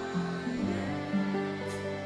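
Gentle instrumental music, long held notes changing slowly from one to the next.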